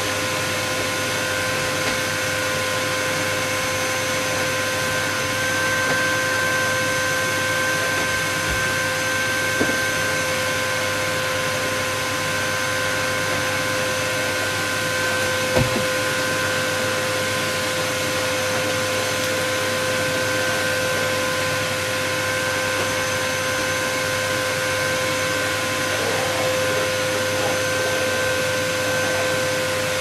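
Vacuum cleaner running steadily: a constant rush of air with an even motor whine made of several steady tones. Two brief knocks sound about ten and sixteen seconds in.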